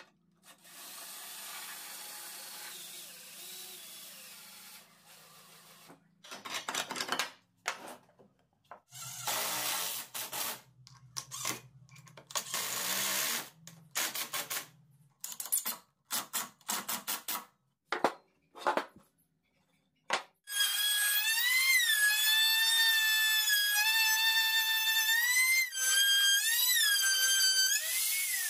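Power tool work: a motor runs steadily for a few seconds, then comes a string of short on-off bursts, then a loud high-pitched motor whine from about two-thirds of the way in, its pitch dipping and recovering several times as the tool is loaded.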